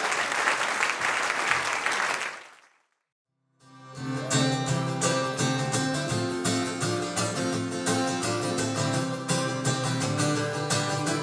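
Audience applause fading out into about a second of complete silence, then a live band's guitars and bass starting a song's instrumental intro, a steady strummed pattern with held bass notes.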